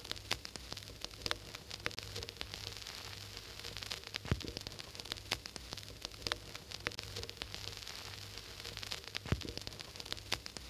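Crackling surface noise: a steady hiss over a low hum, dotted with scattered clicks and pops, with no music playing.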